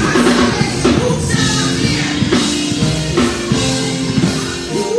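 Live gospel music: a band with drums plays under a woman singing lead into a microphone, with backing singers.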